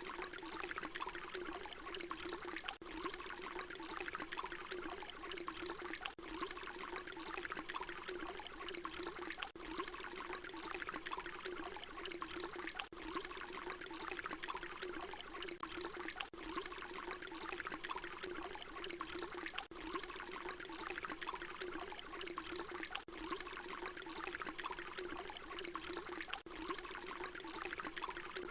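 Water pouring in a steady, continuous stream. There is a brief dip in level about every three and a half seconds, where the short recording loops.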